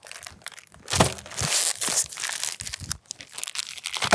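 Reams of printer paper in their paper wrappers, shot through and torn up, being handled and pulled apart: irregular crinkling and rustling of paper, with a loud crackle about a second in.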